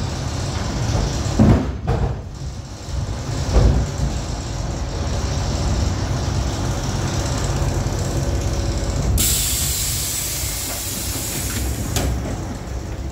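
Electric commuter train running with a low rumble and a steady motor hum, with a couple of thumps in the first few seconds. About nine seconds in, as the train halts, the hum dies away and a loud pneumatic hiss of the air brakes sounds for about three seconds, ending with a click.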